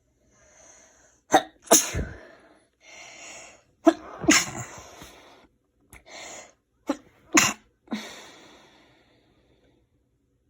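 A person sneezing several times in quick succession, short sharp bursts with breaths drawn in between, the last one trailing off about eight seconds in.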